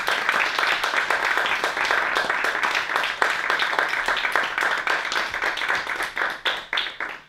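A small audience applauding: a steady patter of many hands clapping that dies away near the end.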